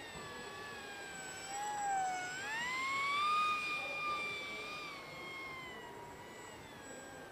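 Electric motor of a radio-controlled Eurofighter model jet whining in flight. Its pitch dips about two seconds in, then rises and holds higher as the throttle opens, and eases back down near the end.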